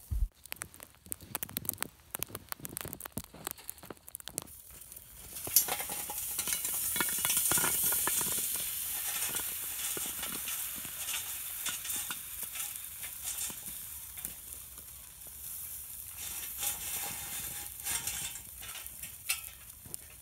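Lit charcoal briquettes poured from a chimney starter onto the wet lid of a Lodge cast iron dutch oven. After a few scattered clicks, the briquettes clatter down and set off a loud sizzling hiss about five seconds in, which slowly dies down with more clinks as the coals settle.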